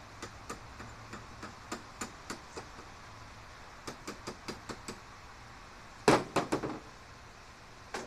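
Wire-feed (MIG) welder working on a garage door spring: a string of short sharp pops and clicks, then about six seconds in a loud crackling burst of the arc lasting under a second, like a quick tack weld.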